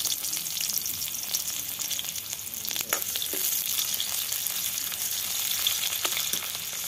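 Sliced onions sizzling in hot oil in a metal kadai, stirred with a large metal ladle, with a couple of sharp clicks as the ladle knocks against the pan about three seconds and six seconds in.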